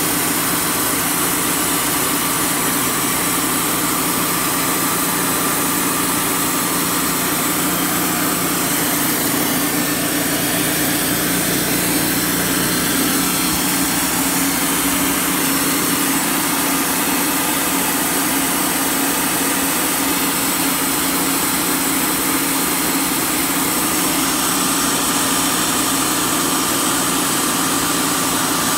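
Wood-Mizer LT35 portable bandsaw mill running steadily, its engine driving the band blade through a wide log.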